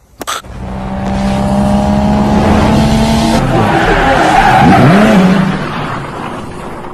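Sound effect of a car drifting: engine running and tyres screeching. It swells up over the first second and fades out toward the end.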